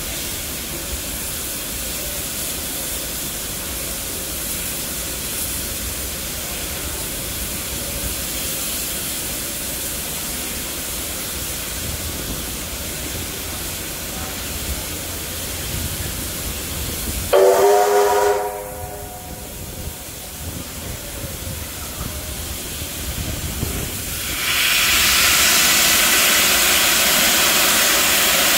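Steam locomotive 3801, a 4-6-2 Pacific, standing with a steady hiss of steam. A little past halfway it gives one short blast of its steam whistle, about a second long. About three-quarters through, a loud, steady hiss of steam starts, venting from the open cylinder drain cocks as the engine readies to leave.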